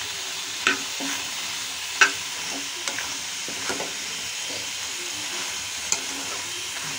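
Spine gourd pieces frying in a kadai with masala, sizzling steadily while a metal spatula stirs them over. The spatula clicks and scrapes against the pan a few times, loudest about two seconds in.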